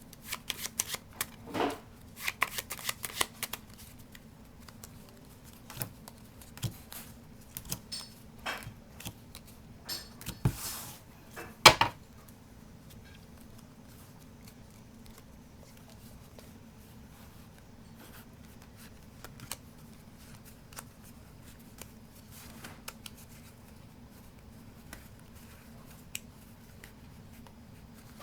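Playing cards being handled and moved around by hand: a flurry of short clicks and snaps through the first dozen seconds, the loudest about twelve seconds in, then only occasional faint ticks.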